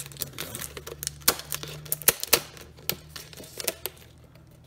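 Fingernails picking and scratching at the shrink wrap on a plastic microwave-meal bowl, trying to catch its perforated tear tab, making irregular sharp plastic clicks and crackles.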